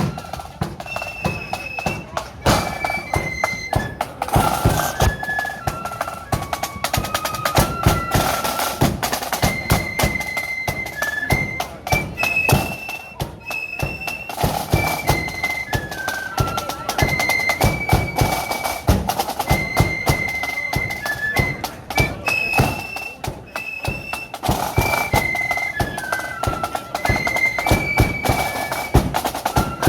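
Marching flute band playing a tune: flutes carry a high melody over a steady beat of bass and snare drums, and the same phrase comes round again about every twelve seconds.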